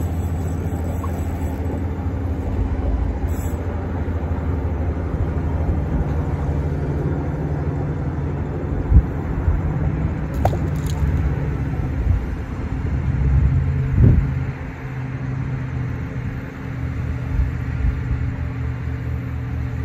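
Steady low rumble of a running motor, with a couple of short knocks about nine and fourteen seconds in.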